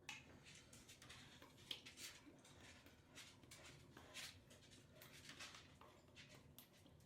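Very faint, irregular soft taps and pats as hot sauce is shaken into a pan of sauced, cubed beef.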